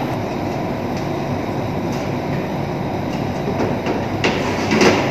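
Steady rumbling background noise. A few light clicks, then a louder metal clatter about four to five seconds in, as strips of bacon are set on the rack of a countertop toaster oven.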